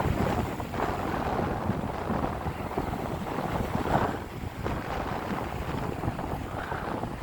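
Strong wind buffeting the microphone over rough sea at high tide, with waves surging and breaking a few times, the loudest about four seconds in.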